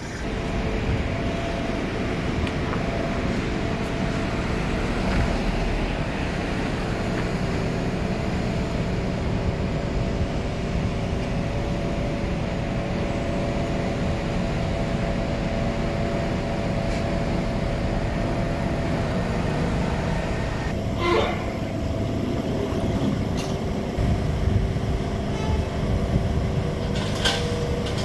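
City street traffic: a steady low rumble of vehicle engines with a constant hum through it, and two short sharp sounds near the end.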